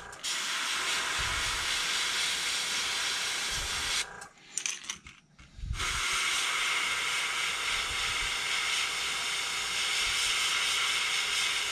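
Airbrush spraying paint in a steady hiss, in two long passes with a pause of about a second and a half between them about four seconds in.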